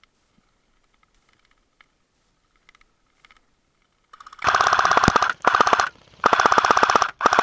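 Airsoft gun firing full-auto: after a few seconds of near quiet with faint clicks, several rapid bursts of shots break out close by in the second half, each under a second long with short pauses between.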